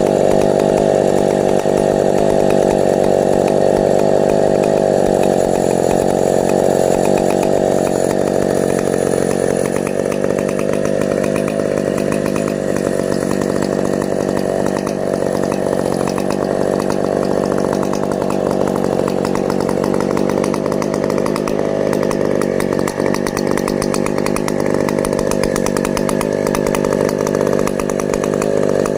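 Chainsaw running steadily at high revs without letting off.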